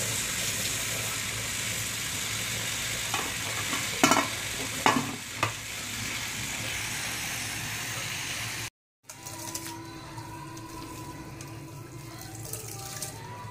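Steady hiss of steam from an aluminium steamer pot cooking glutinous rice, with a few sharp metallic clicks in the middle. The sound then cuts out briefly, and a quieter stretch follows as grated coconut is squeezed by hand.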